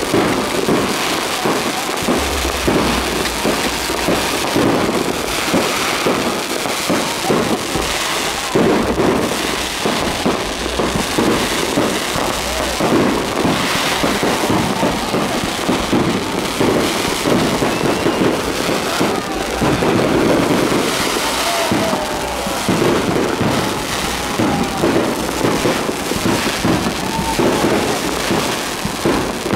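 Fireworks display going off without a break: a dense run of bangs and crackling bursts from aerial shells.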